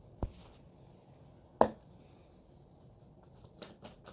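A tarot deck being handled: two dull knocks, the second and much louder one about a second and a half in, then a few light card clicks near the end.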